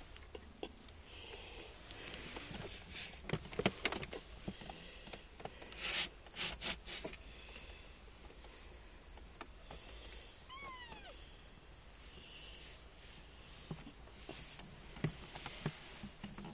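A 25-day-old kitten gives one short mew that falls in pitch, about ten seconds in. Scattered light clicks and knocks, mostly in the first half, come from the kittens moving around the food bowls.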